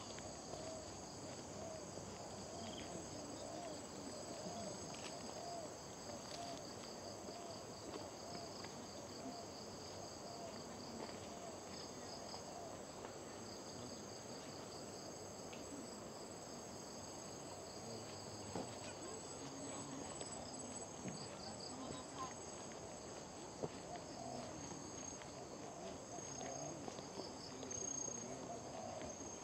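Steady high-pitched chorus of tropical insects, with several continuous tones and one rapidly pulsing trill, with faint indistinct voices underneath.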